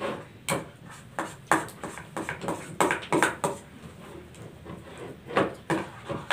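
Spatulas stirring thick glue-and-detergent slime in glass bowls, with irregular clicks and knocks of the spatulas against the glass as the setting mixture is worked.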